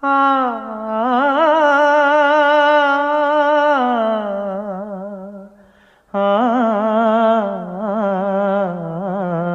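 Background song: a wordless sung vocal line with a wavering pitch, held in long notes, in two phrases with a short break about six seconds in.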